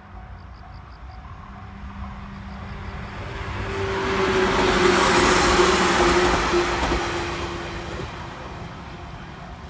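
A vehicle passes by, its noise swelling to a peak about five seconds in and fading away, with a steady hum that dips slightly in pitch as it goes past. Insects chirp faintly in the background.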